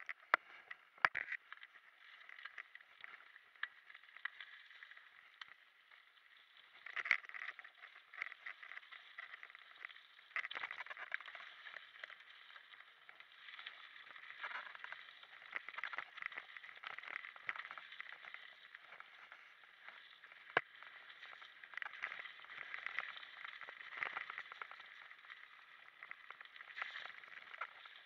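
Mountain bike riding fast down a forest singletrack: a continuous crackle of tyres on the trail surface and rattling of the bike. Sharp knocks from bumps come about a second in, at about seven seconds and near twenty seconds.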